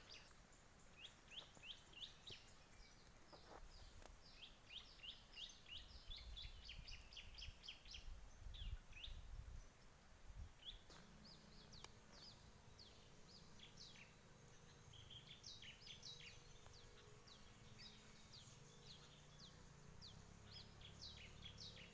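Faint birdsong: small birds giving rapid runs of short, high, falling chirps, on and off. A low rumble comes in the middle, and a faint low hum starts about halfway through.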